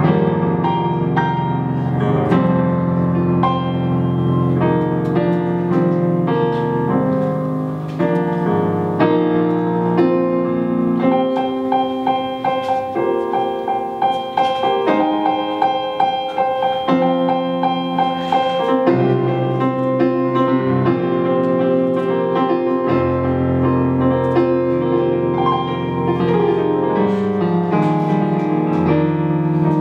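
Solo piano playing an improvised piece: flowing chords and melody, with a passage of quick repeated notes in the middle.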